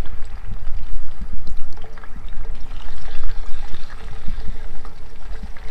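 Fish frying in hot oil in a cast iron skillet: a steady sizzle with many small crackles and pops as the pieces are laid in, over a low rumble. The cook calls the oil too hot.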